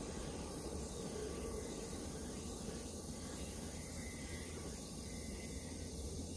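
Faint, steady rumble of a distant freight train running along the line, under an even outdoor hiss.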